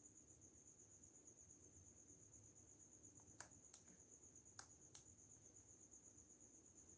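Near silence: quiet room tone with a faint, steady, high-pitched pulsing trill, and four faint sharp clicks a little past the middle.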